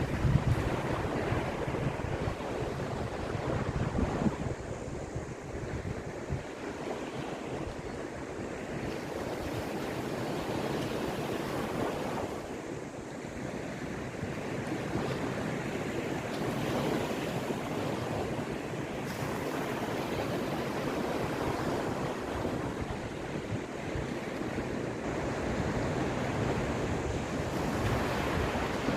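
Caspian Sea waves washing onto the shore, the surf swelling and falling back every few seconds. Wind buffets the microphone with a low rumble in the first few seconds.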